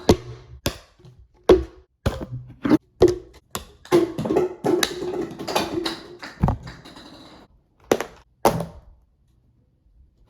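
Irregular series of about a dozen knocks and taps, with a denser muffled stretch between about four and six seconds in; it stops about nine seconds in.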